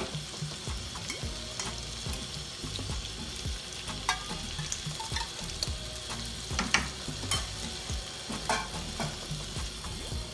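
Chicken, tomatoes and green chillies sizzling in a nonstick wok as yogurt is stirred in. Scattered clicks and scrapes come from a silicone spatula working the pan.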